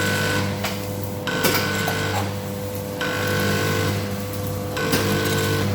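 Automatic vertical sachet packing machine running while packing brown sugar: a steady motor hum with a high tone that switches on and off in a repeating cycle about every one and a half to two seconds, and a few sharp clicks.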